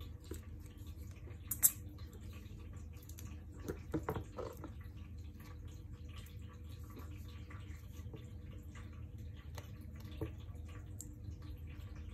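Small clicks and knocks from handling a pack of cylindrical lithium-ion cells as a BMS board is fitted on top: one sharp click about one and a half seconds in, a short cluster of knocks around four seconds in, and a lighter click near the end, over a low steady hum.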